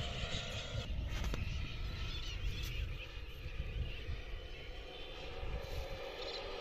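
Engine and propeller of a large radio-controlled A-29 Super Tucano scale model running, a steady multi-toned drone over a low rumble.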